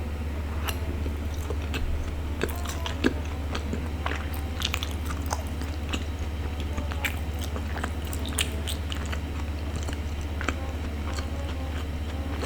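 Close-miked biting and chewing of a sticky glutinous rice ball: an irregular run of small sticky clicks and smacks over a low steady hum.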